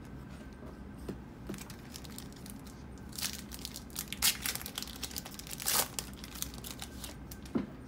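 Foil trading-card pack wrapper being torn open and crinkled by hand, in a string of sharp rustles that starts about three seconds in.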